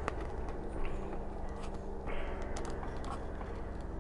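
Faint scattered clicks and rubbing from a Mattel plastic action figure's joints as its arms are moved by hand, over a steady low hum.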